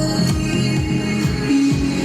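Electronic dance music played back through a Fosi stereo amplifier driving large 15-inch speakers. A deep kick drum drops in pitch on each beat under a bright synth layer.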